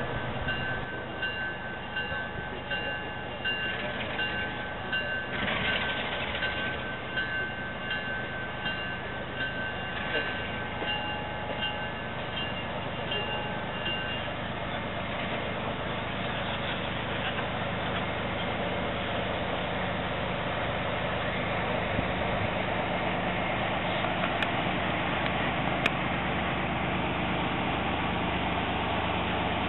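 Diesel locomotive bell ringing steadily, about two strokes a second, over a low rumble of engines in the rail yard; the bell stops about fourteen seconds in while the rumble goes on.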